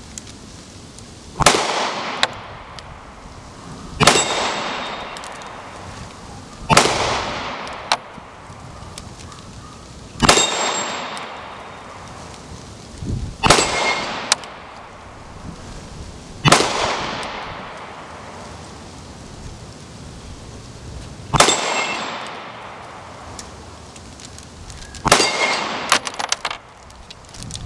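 About eight 9mm pistol shots from a Smith & Wesson M&P Shield firing 115-grain rounds, a few seconds apart. Each shot has the ring of the bullet striking a steel dueling-tree plate and a long fading tail.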